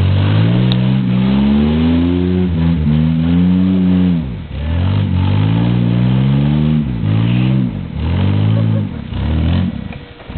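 Engine of a lifted off-road 4x4 revving hard under load on a steep rutted climb. It comes in about six surges, each rising in pitch and then dropping off, and eases off near the end.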